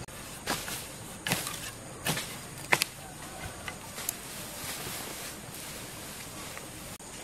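Hands grabbing and dragging bunches of cut grass and weeds over loose soil. The grass rustles, with four sharp crackles in the first three seconds and softer rustling after.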